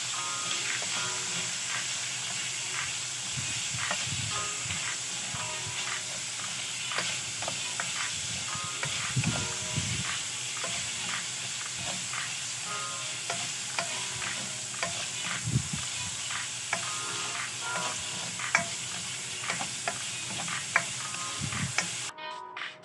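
Pieces of pork sizzling as they fry in a stainless steel pan, with a spatula scraping and tapping against the pan as they are stirred. The sizzle cuts off suddenly near the end.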